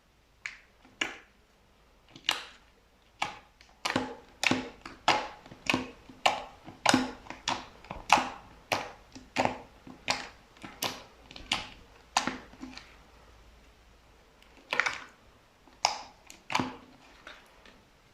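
Slime mixed with small white pearl beads being pressed, giving a run of short crackly pops, about one and a half a second, that pauses for a couple of seconds near the end before a few more.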